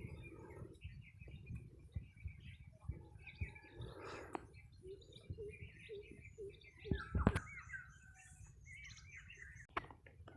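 Birds chirping repeatedly over a low rumble, with a sharp thump about seven seconds in.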